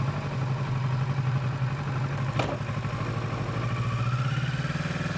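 Kawasaki Versys motorcycle engine idling steadily, with one sharp click about two and a half seconds in. A faint rising whine enters in the last couple of seconds.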